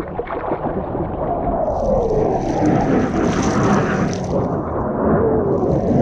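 A fighter jet flying over the valley: a loud, rumbling jet roar whose pitch falls as it passes. Water splashes close by from swimming.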